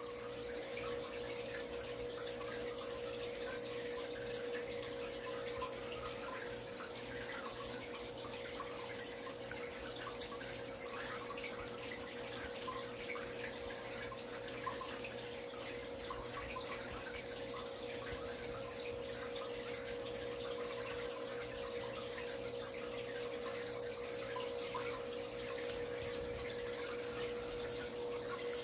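Aquarium filter running: a continuous fine trickle and splash of water, with a steady motor hum underneath.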